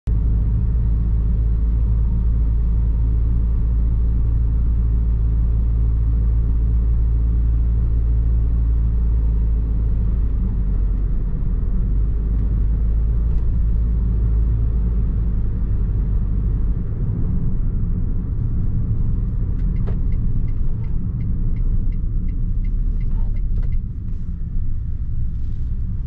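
Low, steady rumble of a car driving along a winding mountain road, heard from inside the cabin. It eases slightly about two-thirds of the way in, where a run of light, evenly spaced ticks comes in for a few seconds.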